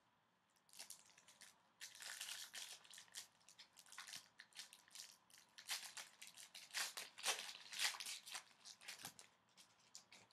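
Shiny foil wrapper of an O-Pee-Chee Platinum hockey card pack being torn open and crinkled by hand: a long run of sharp crackles and rustles, loudest a little past the middle.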